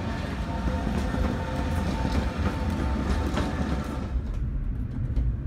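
Tatra T3 tram passing close by, its running gear rumbling on the rails with a steady high whine and a few sharp clicks. About four seconds in, the sound changes abruptly to a deeper, duller rumble.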